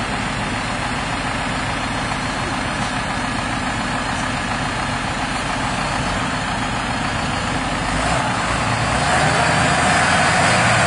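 Two big six-cylinder farm tractor diesels, a Massey Ferguson 7618 and a Claas Arion 540 (one of them straight-piped), running steadily while chained together to pull a stuck tractor and trailer out of mud. About eight seconds in the engine sound grows louder and brighter as power is added.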